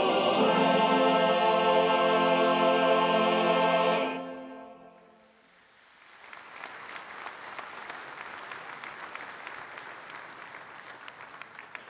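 Choir and orchestra holding the song's final chord, which dies away about four seconds in. After a brief hush, an audience breaks into steady applause.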